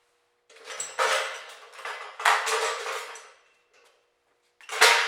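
Steel sawmill track parts and hardware clinking and clattering in three bursts, each about a second long and ringing out briefly, over a faint steady hum.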